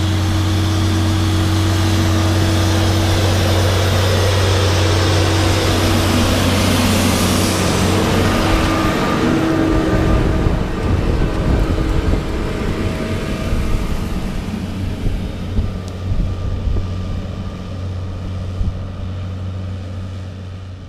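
Case Puma 165 tractor's six-cylinder diesel engine running with a steady hum; about halfway through the sound drops a little and turns more uneven, easing off gradually toward the end.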